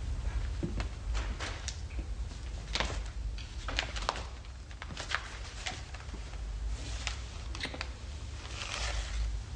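Irregular light clicks and knocks, like footsteps and the handling of a newspaper, with a rustle of clothing and paper near the end, over a steady low hum.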